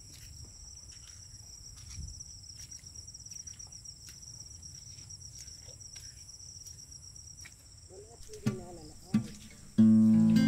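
Insects trilling steadily in the grass beside the rice paddies, a high, even buzz, with faint ticks of footsteps on the muddy track. The trill fades about three-quarters of the way in, two short voice sounds follow, and acoustic guitar music starts loudly just before the end.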